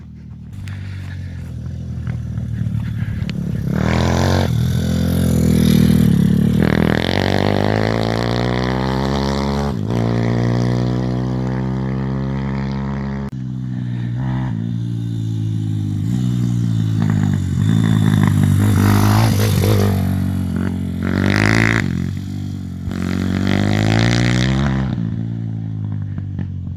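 Zongshen Z160 single-cylinder four-stroke pit bike engine revving hard, its pitch climbing and dropping several times as it pulls through the gears. The exhaust pops and crackles off throttle, which may mean it is coming loose at the manifold.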